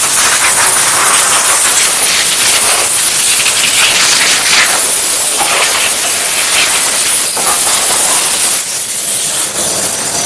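Loud, steady hissing noise with no clear rhythm or tone, thinning slightly a little before the end.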